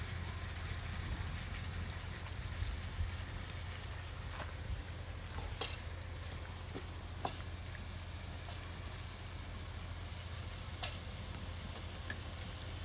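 Meat and vegetables sizzling in a cauldron over a wood fire, a steady hiss with scattered sharp crackles.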